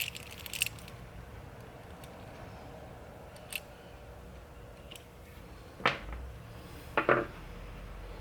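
Scattered small metallic clicks and clinks of a screwdriver working parts inside a truck steering column, with two louder knocks near the end.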